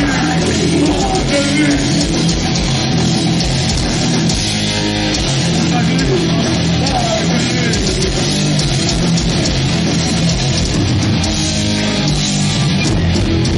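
Death metal band playing loud and live, with distorted electric guitars, bass and drums driving a riff, heard from within the crowd.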